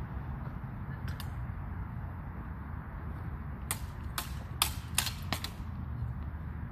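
Backsword blades clashing in a quick exchange: a flurry of six or seven sharp clacks a little past halfway, after two fainter clicks about a second in. A steady low rumble runs underneath.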